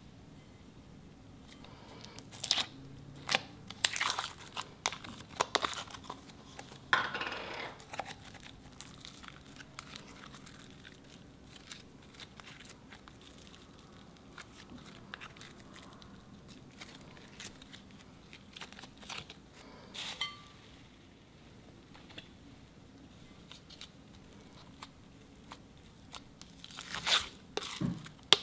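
Slime being pulled out of plastic tubs and handled, with sharp crackling clicks and a tearing peel a few seconds in. Quiet handling and stretching of glittery slime follows, then more loud crackling near the end as a pink foam slime is pried out of its tub.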